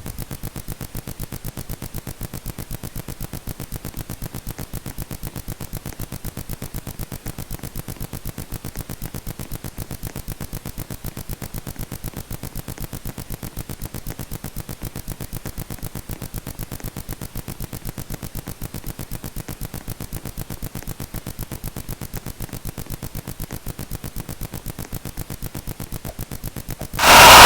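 A steady, rapid pulsing buzz, several pulses a second, that holds unchanged for nearly half a minute, then gives way to a sudden loud sound near the end.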